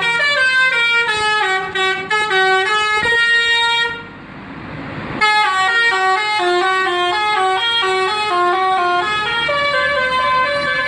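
A bus's musical telolet horn playing a tune of short notes that step up and down in pitch. About four seconds in, the horn pauses for a second with a hiss before the melody resumes.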